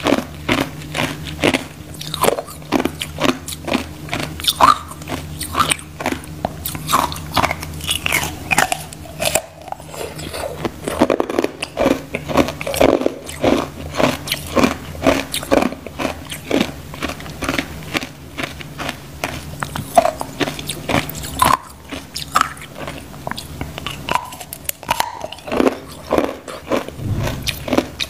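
Hard ice frozen with pomegranate seeds being bitten and chewed: a dense run of sharp cracks and crunches, several a second. A low steady hum runs underneath for much of it.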